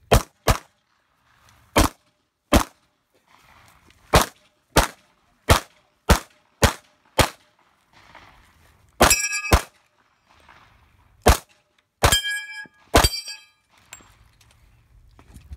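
Pistol shots fired in quick pairs and strings at an uneven pace. In the later part several shots are followed by a ringing clang of steel targets being hit.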